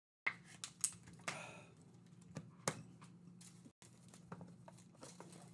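Hands handling and opening a trading-card box of cardboard and plastic wrap: a few sharp clicks and taps, a brief ripping sound about a second in, then light scattered ticks over a low steady hum.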